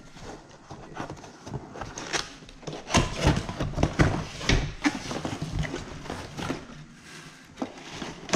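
Cardboard box being opened and packed parts handled: irregular knocks, clatter and rustling, busiest in the middle.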